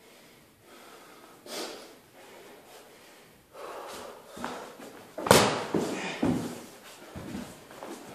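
Sounds of a person moving out of sight: a few soft breaths and rustles, then a loud sudden noise about five seconds in, followed by a few short thumps.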